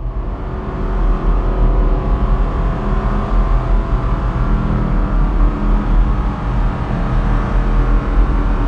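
Cinematic ambience sound effect: a dark, steady drone of heavy low rumble under layered sustained tones.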